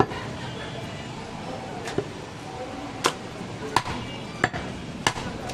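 A heavy butcher's cleaver chopping through a goat's rib section on a wooden chopping block: about six sharp strikes, coming faster in the second half, roughly one every 0.7 seconds.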